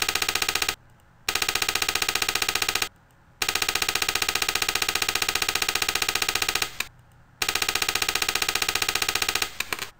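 A slide-animation sound effect: a rapid, buzzy rattle of evenly repeated clicks, played in four bursts of one to three seconds each, one burst for each phrase of text that animates onto the slide.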